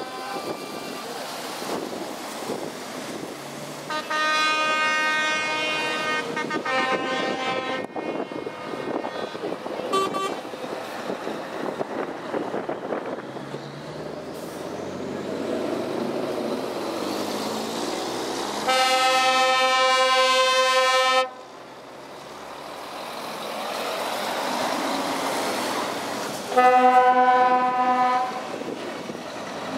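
Heavy trucks' diesel engines running as they pull past one after another, punctuated by truck air horns. One horn plays about 4 s in and changes chord partway through, a short toot comes near 10 s, the loudest blast lasts nearly three seconds around 19 s in, and another blast sounds near the end.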